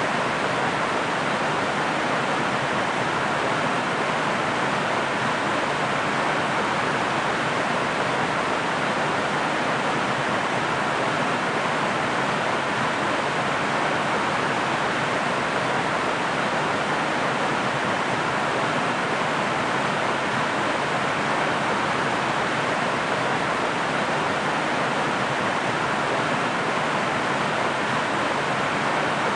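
Waterfall: water falling and splashing in a constant, even rush with no change in level or character.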